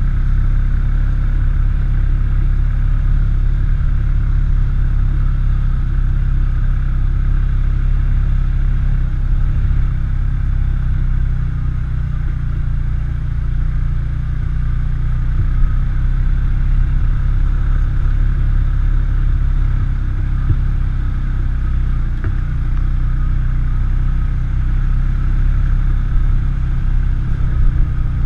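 ATV engine running steadily while riding, with a heavy low rumble throughout.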